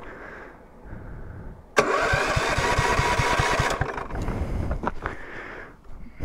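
The kart's 270 cc single-cylinder engine cranking on its electric starter. It starts suddenly about two seconds in with an even pulsing, runs about two seconds and fades away without catching, because the engine has flooded.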